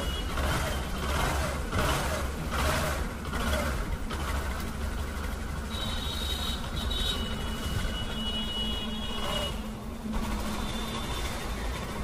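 Bajaj Discover 125 ST's single-cylinder engine running steadily after repair, its worn rocker arms replaced with new ones, with a few rhythmic pulses in the first few seconds.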